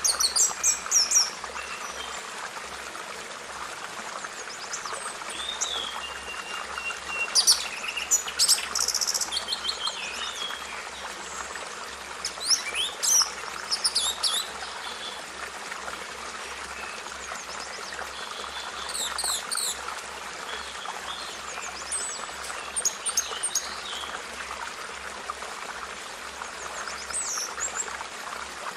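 Birds chirping and singing in short bursts of quick high notes every few seconds, over a steady background hiss.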